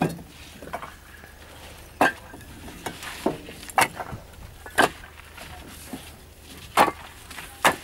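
Fired clay bricks clacking against one another as they are lifted and stacked by hand: a handful of sharp knocks at irregular intervals, about one every second or two.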